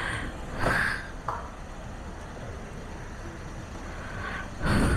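Yamaha MT-15 motorcycle running at low speed with a steady low rumble. There are two brief rushing noises, one about a second in and one near the end.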